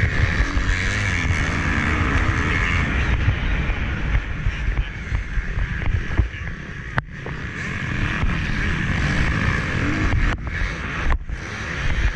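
Motocross bike engine running hard, with wind buffeting the action-camera microphone. The engine sound drops away briefly about halfway through, then builds again.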